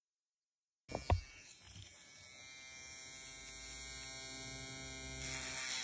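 Handheld electric rotary tool running with a steady high motor whine that grows slowly louder, after a couple of clicks about a second in.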